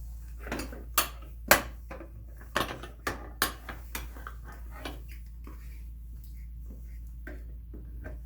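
Sharp clicks and knocks of hard wagon parts being handled while a wheel is fitted onto its axle. They come in an irregular run, loudest about a second and a half in, and thin out to a few faint ticks after about five seconds.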